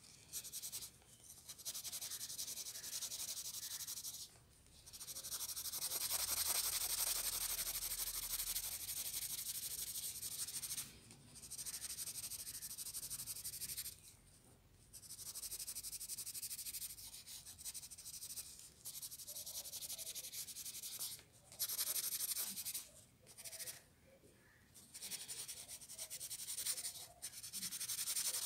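Coloured pencil shading on drawing paper: quick back-and-forth scratching strokes in stretches of a few seconds, broken by short pauses.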